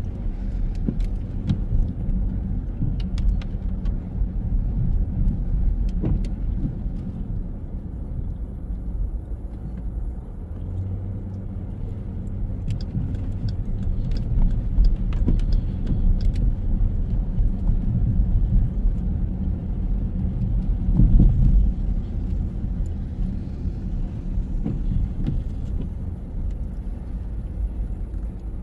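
Car driving on a city street: a steady low rumble of engine and road noise, with a few light clicks and rattles.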